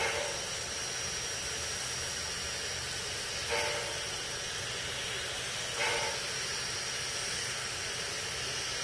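Robert Dollar Co. No. 3 steam locomotive standing with a steady hiss of steam escaping near its cylinders. Three brief louder puffs of steam break in: at the very start, about three and a half seconds in, and just before six seconds.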